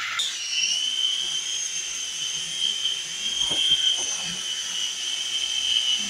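Syma S52H toy tandem-rotor RC helicopter in flight: its small electric motors and twin rotors give a high, steady whine. The whine starts about a quarter second in and settles a little lower in pitch as it steadies.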